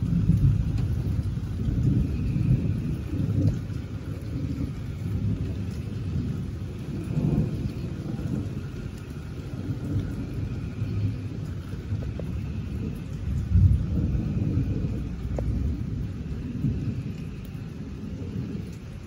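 Thunder rumbling and rolling on and off, swelling loudest just after the start and again about two-thirds of the way through.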